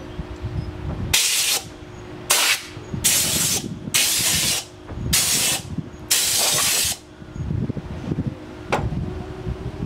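Welder laying six short welds on the car's engine-bay sheet metal, each burst starting and stopping abruptly and lasting half a second to a second, followed by a single sharp click near the end.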